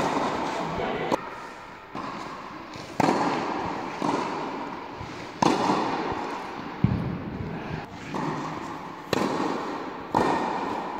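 Tennis balls struck with rackets in a volley rally: about ten sharp hits roughly a second apart, each echoing through a large indoor tennis hall.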